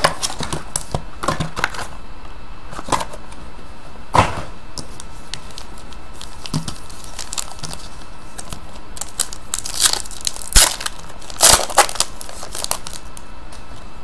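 Foil trading-card pack wrapper crinkling and tearing as it is opened and handled, in scattered crackles with louder bursts about four seconds in and again near ten and twelve seconds in.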